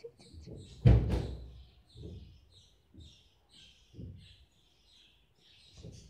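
Budgerigar chirping softly, many short high chirps in quick succession. A loud rustling thump of handling comes about a second in, with softer thumps about once a second after it.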